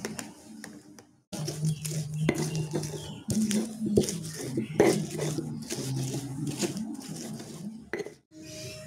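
Stone pestle grinding shallots, garlic, chilies and salt on a flat volcanic-stone mortar (Indonesian cobek and ulekan). It makes a continuous gritty scraping with frequent sharp knocks as stone strikes stone.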